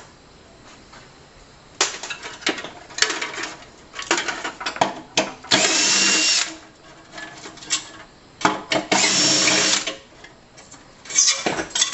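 Cordless drill/driver spinning in two bursts of about a second each with a steady whine, backing screws out of the ballast mounting in a street light fixture. Short clatter and clicks of metal parts being handled come between the bursts.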